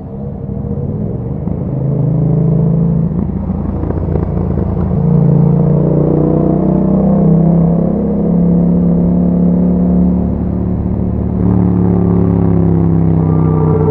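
Yamaha MT-07's parallel-twin engine through an Akrapovic exhaust with a dB killer fitted, under way on the road. The engine note climbs after a dip at the start, steps up about five seconds in, eases off briefly near ten seconds, then pulls again.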